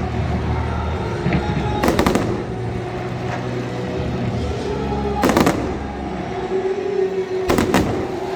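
Fireworks bursting in sharp bangs: a quick cluster about two seconds in, another about five seconds in, and a close pair near the end, over background music.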